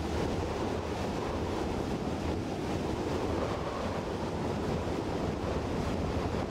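Small motorboat under way: a steady rush of water along the hull and wind buffeting the microphone, over a low, even engine drone.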